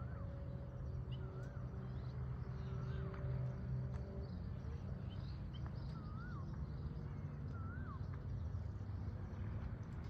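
A bird calling repeatedly: short whistled notes that rise and fall, every second or two, over a steady low outdoor rumble.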